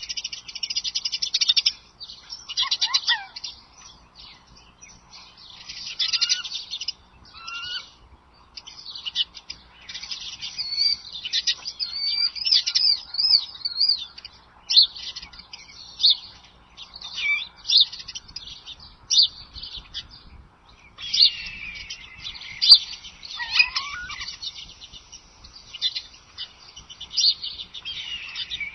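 Wild birds chirping and singing in many short, overlapping high calls and warbles that come in clusters with brief lulls between them.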